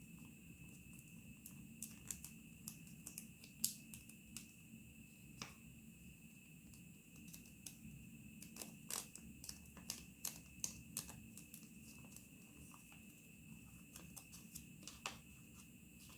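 Origami paper being folded and creased by hand: scattered soft crinkles and taps, irregular and a little denser in the middle, over a faint steady hum.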